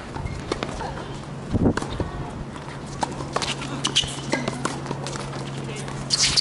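Tennis rally on a hard court: sharp pops of the ball off racket strings and its bounces, spaced a second or so apart, the loudest near the end. A steady low hum runs underneath.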